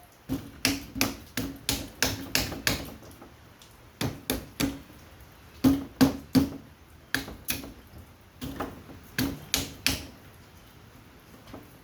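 Sharp knocks on the wall-mount air conditioner's parts as its plastic is worked loose from the coil, coming in runs of three to seven at about three a second, with short pauses between the runs.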